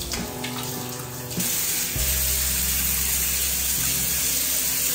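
Bathroom sink tap running while a face is washed under it, the flow growing louder about a second and a half in, over quiet background music.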